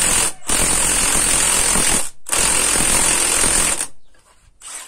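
Cordless impact wrench hammering as it drives a spring compressor's threaded rod, compressing a MacPherson strut coil spring to take its tension off the strut top. It runs in long bursts with short pauses, stops about four seconds in, then gives one brief last burst.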